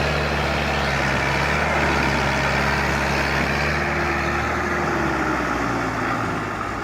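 A large vehicle engine running steadily, its pitch sagging a little about five seconds in.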